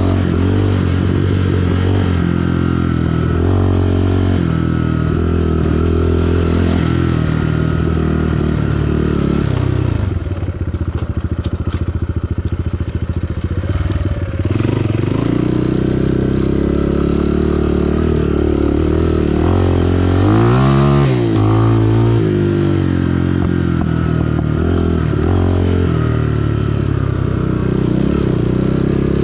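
SSR SR189 dirt bike's single-cylinder four-stroke engine running under changing throttle. For a few seconds around the middle it drops to a slow, low chug, then about twenty seconds in it gives a quick rev that rises and falls before settling back to cruising.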